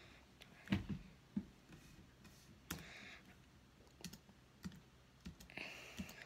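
Faint, irregular clicks and taps of keys being pressed on a computer keyboard, a few at a time with pauses between.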